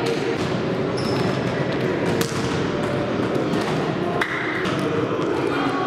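Volleyball being struck: a few sharp thuds of hits on the ball over the steady noise of a sports hall, with a short high tone about four seconds in.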